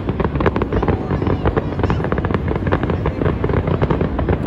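Fireworks display going off in a dense, continuous barrage: rapid bangs and crackles, many per second, over a low rumble.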